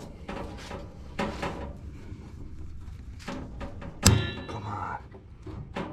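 Light handling knocks, then a loud metal clank about four seconds in, ringing briefly afterwards.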